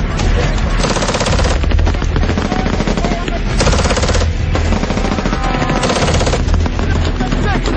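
Belt-fed machine gun firing rapid bursts, the loudest about a second in, around four seconds and around six seconds in.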